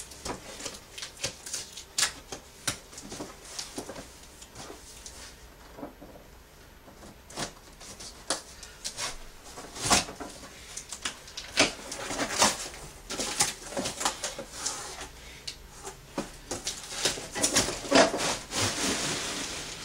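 A large cardboard box being cut open and handled: a knife slitting packing tape, then cardboard scraping, rubbing and knocking as the box is turned over and its flaps are pulled open. The sounds come irregularly, with a quieter lull about six seconds in.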